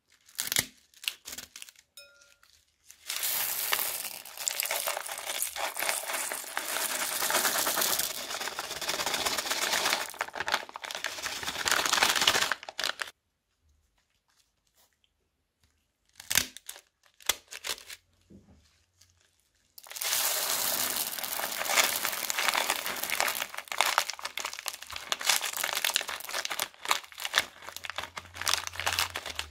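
Plastic piping bags crinkling as they are snipped open with scissors and squeezed, spilling plastic beads and cut straw pieces into the bowl with a dense crinkling rattle. A few sharp snips come first, then two long stretches of crinkling, one from about three seconds in to about thirteen, the other from about twenty seconds on.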